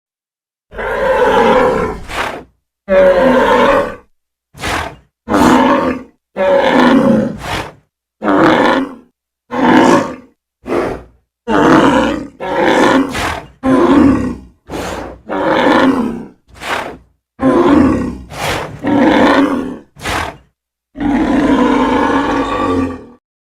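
A string of creature roar and grunt sound effects, each cut off cleanly with dead silence between: about eighteen growling calls, mostly short, with a longer drawn-out roar near the end.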